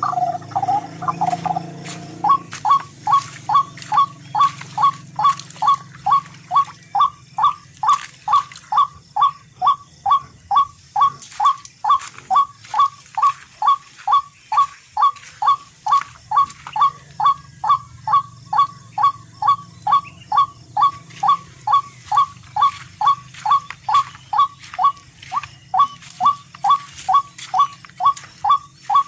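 A short animal-like call, repeated very evenly about twice a second, starting about two seconds in.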